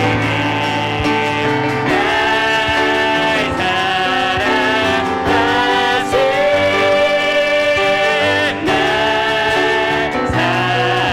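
Worship team vocalists singing a hymn in Korean over piano accompaniment, with long held notes.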